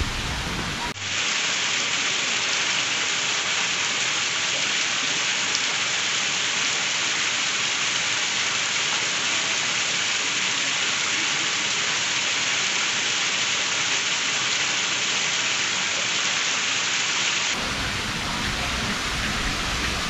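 Steady, even hiss of falling water, like rain. It starts abruptly about a second in and cuts off abruptly near the end.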